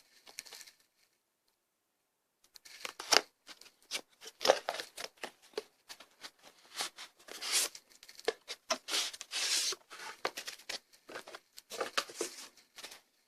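A product box and its packaging being opened by hand: after about two seconds of quiet, a long run of rustling, tearing and crinkling with short sharp clicks.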